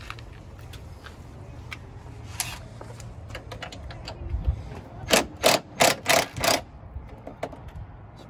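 Cordless impact driver run in five short trigger bursts in quick succession about five seconds in, driving a fastener at the door hinge. Before it, light clicks and knocks of metal parts being handled, over a steady low hum.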